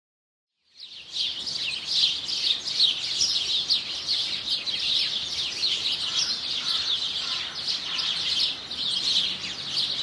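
Many small songbirds chirping together in a dense chorus of quick, high chirps. It starts about a second in after a moment of silence.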